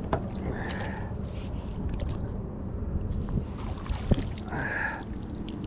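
Water sloshing over a steady low rumble, with a sharp knock just at the start and another about four seconds in, as a magnet-fishing line is hauled in.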